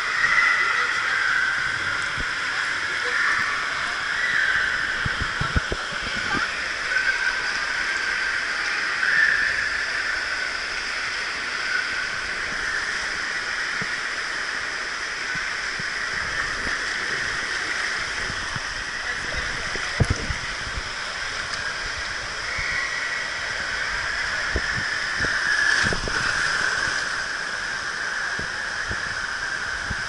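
Water rushing and splashing down a water slide channel as a rider slides through it, a steady wash of water, with a few sharp knocks along the way.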